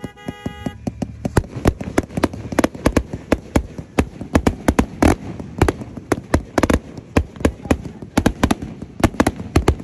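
Fireworks going off in a rapid, irregular string of sharp cracks and pops, several a second, opening with a brief buzzing tone in the first second.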